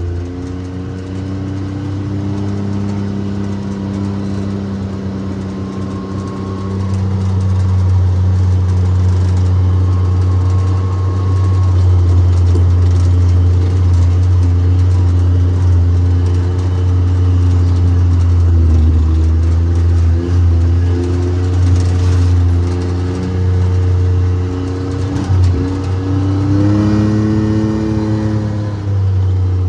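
A vehicle engine running steadily while driving, with a strong low hum throughout. The engine's pitch shifts up and down a few times, most noticeably near the end.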